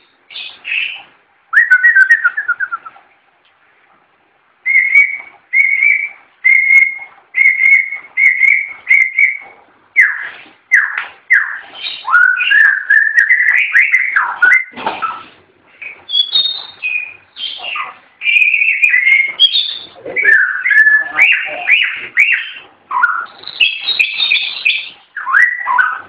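White-rumped shama singing: after a short pause, a run of about six clear, evenly repeated whistles, then a fast, varied stream of whistled phrases mixed with harsher notes.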